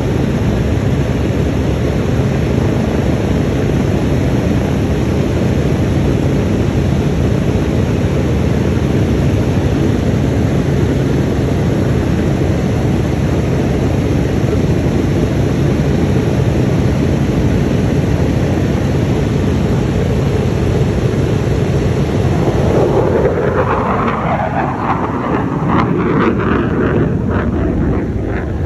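Four radial piston engines of a B-17 Flying Fortress running on the ground, a loud steady rumble. About three quarters of the way through the sound changes and irregular gusts buffet the microphone.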